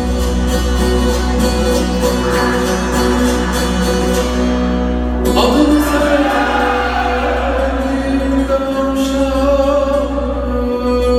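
Turkish folk dance music with singing, accompanying a dance performance; the music changes to a new passage about five seconds in.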